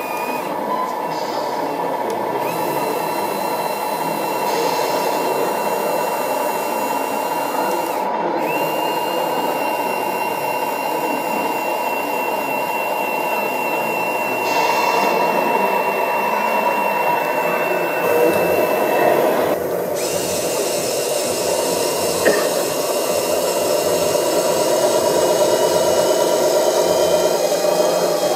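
Steady whine of the small electric hydraulic pump on a radio-controlled scale tipper trailer as it holds and raises its dump bed. About twenty seconds in, the sound changes abruptly to a second, similar motor sound.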